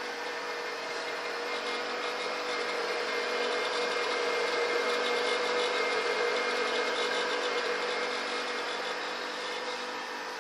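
Federal Signal Model 173 Beacon Ray rotating beacon from about 1951, its electric motor turning the reflectors with a steady hum and whir.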